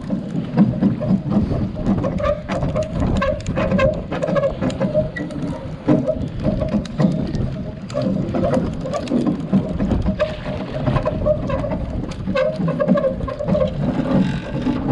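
Water slapping and splashing against the side of a boat's hull, with irregular sharp slaps over a busy, noisy wash and wind buffeting the microphone.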